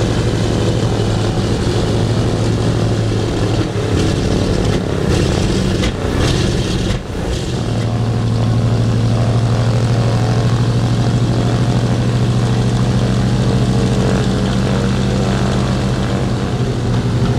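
Douglas C-47 Dakota's radial piston engines running on the ground, a steady propeller-driven drone. About seven seconds in the sound dips briefly, then comes back steadier and fuller.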